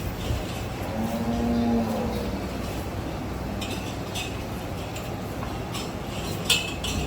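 A steady background din with one short, low call of a cow mooing about a second in, holding its pitch and dipping at the end. Several sharp metallic clinks come near the end.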